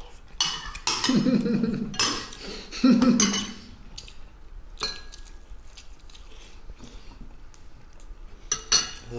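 Metal spoons clinking and scraping against ceramic soup bowls as two people eat quickly. Busiest and loudest in the first few seconds, then scattered clinks, with a few more near the end.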